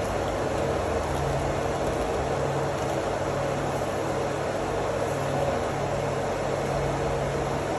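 Steady hum of an electric water pump running in a pump house: a low drone and a higher steady tone over an even hiss.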